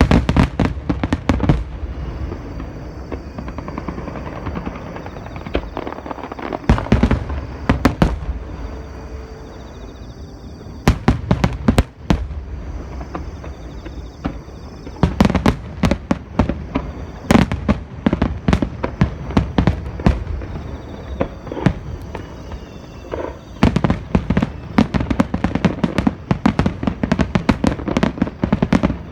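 Aerial fireworks bursting in rapid volleys, many sharp bangs close together with crackling between them. They ease off for a few seconds near the middle, then heavier barrages start up again.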